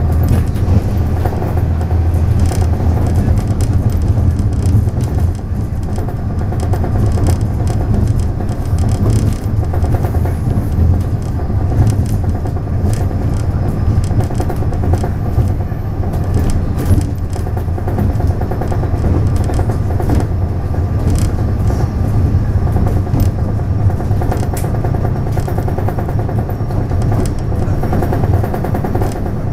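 Taiwan Railways DR3000 diesel multiple unit running at speed: a steady, loud diesel engine drone mixed with wheel-on-rail noise, with scattered clicks from the track.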